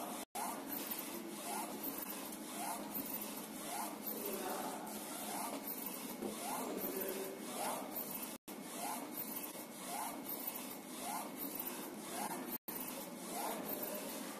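BYC A3 UV flatbed printer printing, its print-head carriage shuttling back and forth along the rail in a steady, evenly repeating rhythm. The sound cuts out for an instant three times.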